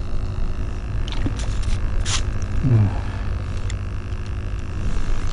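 Steady low wind rumble on the microphone, with a few light clicks and a short scrape about two seconds in as a plastic ice-fishing tip-up is handled and set over the hole. A brief falling low sound comes just before the middle.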